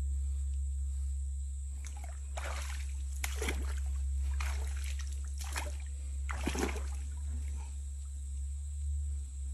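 Splashing and sloshing in shallow, muddy stream water as a person wades and reaches into it at a set fishing line. There are about five separate splashes between two and seven seconds in.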